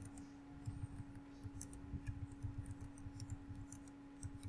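Faint typing on a computer keyboard: irregular, quick key clicks over a steady low electrical hum.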